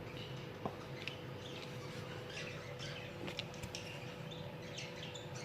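Spoon stirring thick chocolate chip cookie dough in a bowl: short, irregular scraping and squishing sounds, with one sharper click under a second in. A faint steady hum runs underneath.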